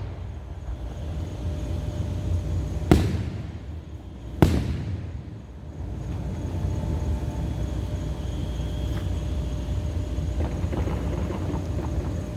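Fireworks shells bursting in the air: two sharp booms about a second and a half apart, each with a short echoing tail, over a steady low rumble, with faint crackling later on.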